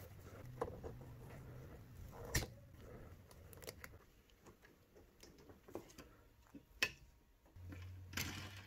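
Handling sounds of a black plastic cable drag chain and braided cable in gloved hands: faint rustling with scattered sharp clicks, the loudest about two and a half seconds in and again near seven seconds, and a short rasp near the end.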